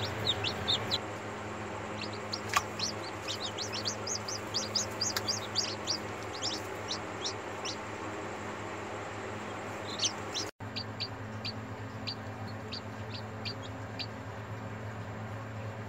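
Newly hatched chicks peeping: many short, high, falling cheeps, thick for the first several seconds and sparser after a brief break about ten seconds in. A steady low hum runs underneath.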